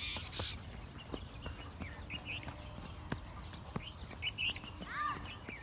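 Feet and dog paws running on a dirt track, with an irregular patter of footfalls, while small birds chirp. About five seconds in, a bird gives a short call that rises and falls.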